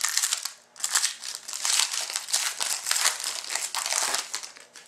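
Foil wrapper of a hockey trading-card pack crinkling as it is torn open by hand and the cards are pulled out. A dense crackle with a brief pause just under a second in, stopping just before the end.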